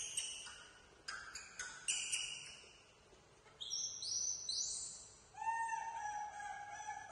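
Baby macaque giving a series of short, high-pitched squealing cries, some rising in pitch, then a longer, lower cry in the second half.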